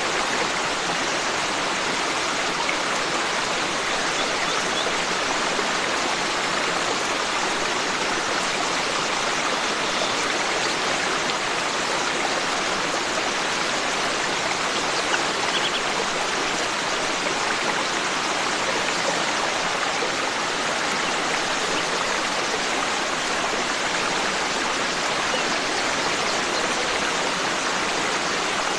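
Forest stream flowing, a steady unbroken rush of water.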